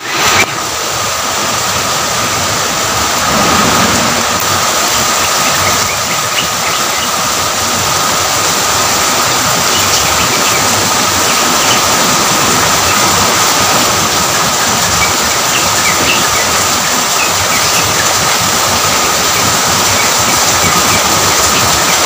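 Steady rain falling, a dense even hiss with scattered small drop ticks and a thin steady high tone running under it.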